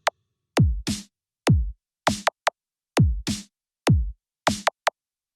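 Electronic drum-machine beat used as a speaker mid-range test track. Kick drums with a sharply falling pitch alternate with snare or clap hits and a few short hi-hat ticks, each hit clean and separated by silence, at about two hits a second.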